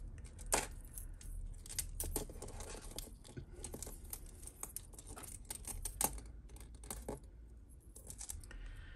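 Costume jewellery (metal bangles, chains and beads) clinking and rattling in irregular light clicks as hands draw a necklace out of a tangled pile and pick through it, over a steady low hum.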